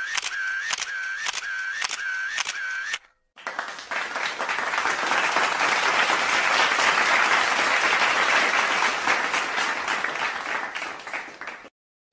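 An edited-in rhythmic clicking sound effect, about three beats a second, stops abruptly. After a brief silence, applause swells and fades, then cuts off suddenly.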